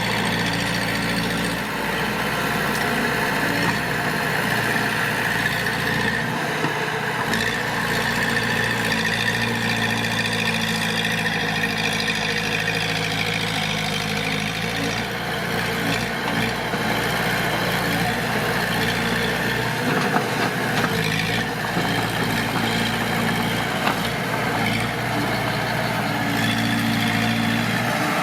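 Diesel engine of heavy earthmoving machinery, a bulldozer or dump truck, running steadily, its pitch shifting slightly now and then as the load changes.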